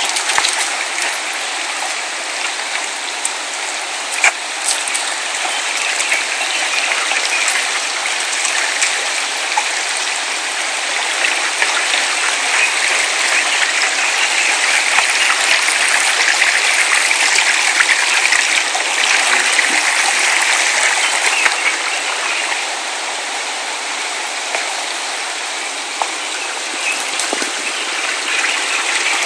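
Shallow stream rushing and splashing over rocks, a steady rush of water that swells louder for a while in the middle.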